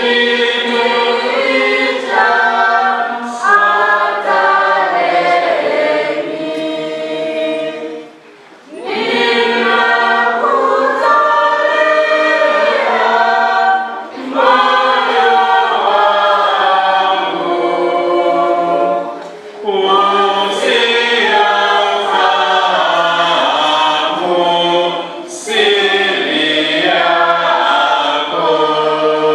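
Church choir singing a hymn in several voice parts, unaccompanied, in phrases of about five or six seconds with brief pauses for breath between them.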